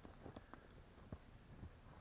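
Near silence broken by a few faint, scattered crunches and knocks as a person steps in snow and handles wood.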